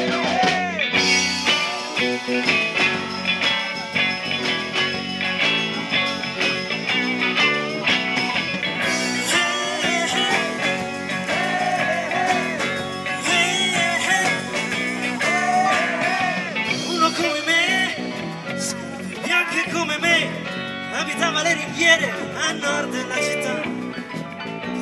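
Live rock band playing: electric guitars, bass guitar, keyboards and drums, with lead vocals at times.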